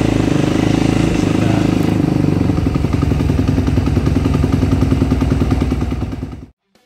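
2009 Suzuki RM-Z250's single-cylinder four-stroke engine running steadily on choke just after a first-kick cold start. The sound stops suddenly about six and a half seconds in.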